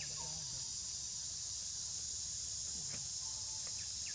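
Steady high-pitched drone of an insect chorus, with a few short falling chirps near the end.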